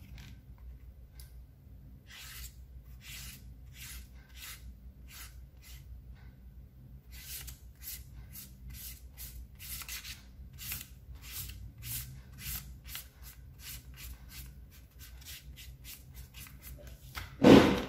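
Felt-tip marker scratching back and forth across folded paper, about two to three short strokes a second, as the wing of a paper crane is coloured in.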